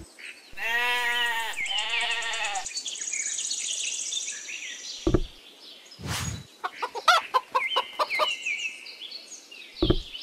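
A sheep bleats twice, then a chicken clucks several times, over high bird chirps; a few knocks are heard along the way.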